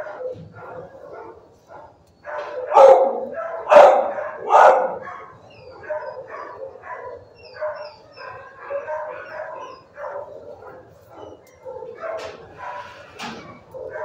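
Dogs barking in a shelter kennel block: a constant run of overlapping barks, with three loud barks about three to five seconds in.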